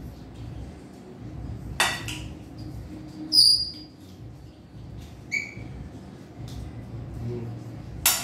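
Mussel shells and a fork clinking against metal cooking pots while mussels are eaten. There is a sharp clack about two seconds in, a couple of short high ringing chinks, and another sharp clack near the end as a shell goes into the pot for empty shells.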